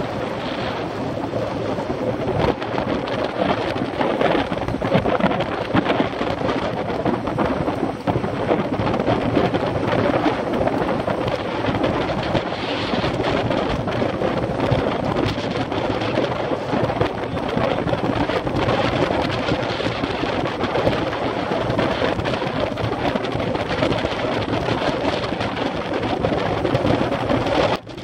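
Wind buffeting the microphone of a camera on a road bike moving at about 20 mph in strong wind: a steady, rough rushing noise.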